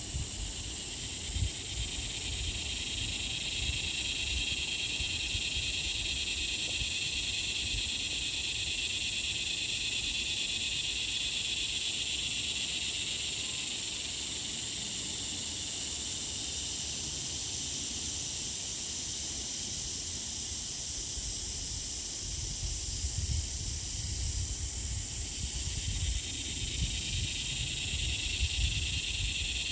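Steady chorus of insects: layered high-pitched buzzing, with a regular pulsing at the very top. A low rumble comes and goes near the start and again in the last several seconds.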